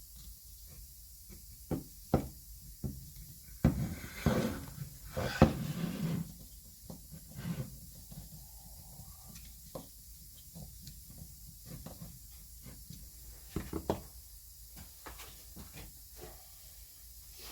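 Scattered knocks and clicks of a pneumatic joggler and hole-punch tool being handled and checked at the bench, with a louder, busier stretch of clattering about four to six seconds in.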